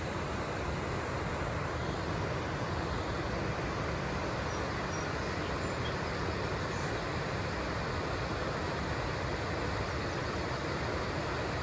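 Spring-fed waterfalls cascading down a rocky canyon slope: a steady, even rush of falling water.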